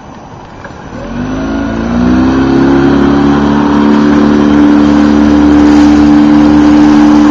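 Motorboat engine throttling up: its pitch rises for about a second and a half from a second in, then holds steady and loud.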